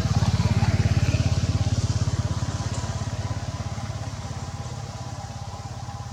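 A small engine running with a fast, even low pulsing, loudest about a second in and then fading gradually as it moves away.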